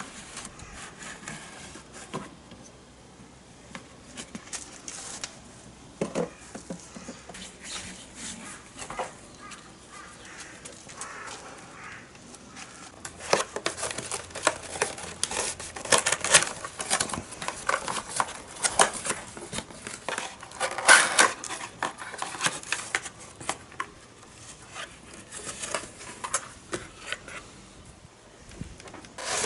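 Irregular clicks, taps and rustling of small objects being handled, sparse at first and busier and louder from about halfway through.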